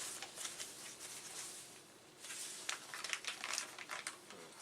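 Plastic packaging bag crinkling and crackling as a boxed circuit board is handled, in two spells with a quieter pause about halfway through.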